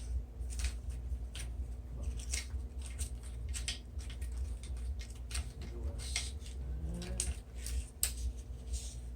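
Backing paper being peeled off a self-adhesive measuring-tape strip as it is stuck down: an irregular run of short crackling rips and crinkles, over a steady low hum.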